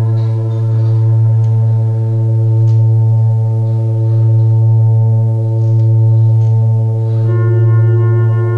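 Yamaha DX7 FM synthesizer playing a sustained ambient pad: a held chord over a deep low drone, slowly swelling and easing in loudness. About seven seconds in, the chord changes and higher notes come in.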